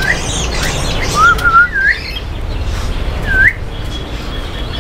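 Caged pet birds calling: a clear whistle that dips and then rises, repeated about every one and a half seconds, with a short warbling call and softer chirps among them.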